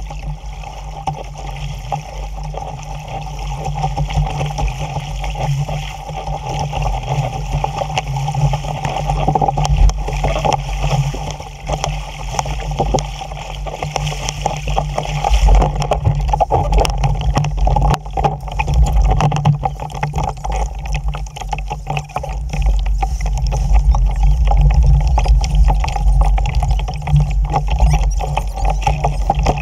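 Wind buffeting the microphone of a camera mounted on a small sailing dinghy, with water rushing and slapping along the hull as it sails fast through chop. The rumble surges and eases with the gusts.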